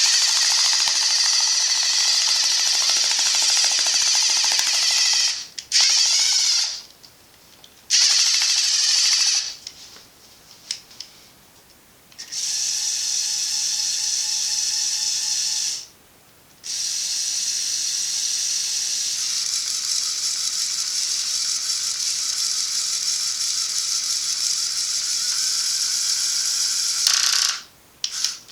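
Small electric motors of a LEGO Technic RC excavator whirring through plastic gears, running in stretches of a few seconds up to about ten seconds with brief stops between.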